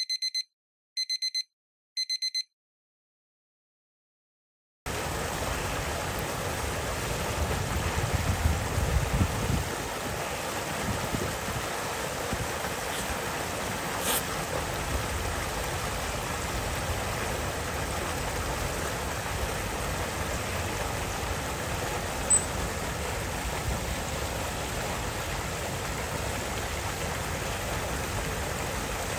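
Three short high electronic beeps, a few seconds of silence, then a steady rush of running water, with a low rumble about a third of the way in and a single faint click near the middle.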